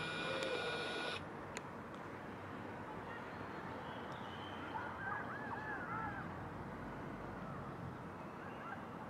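Outdoor ambience with a steady background hum. A high, steady mechanical whine with several overtones cuts off about a second in, and a few birds give short looping calls around the middle.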